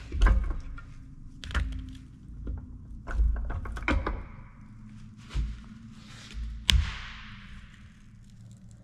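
International Harvester 1066 PTO housings being pried apart with a screwdriver and lifted off each other: a string of dull thunks and knocks, with a sharper metal clank about three-quarters of the way through.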